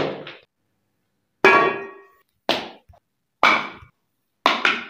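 Four sharp knocks about a second apart, some with a brief metallic ring: kitchenware (a steel gas stove, a frying pan, bowls and plates) being set down on a concrete floor. Each knock is cut off abruptly into silence.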